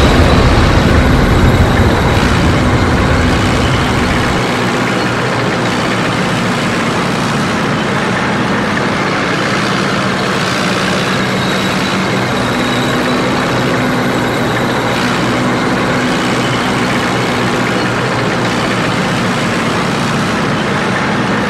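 Dubbed-in sound effect of a heavy tank engine running steadily, starting with a loud explosion whose deep rumble dies away after about four seconds.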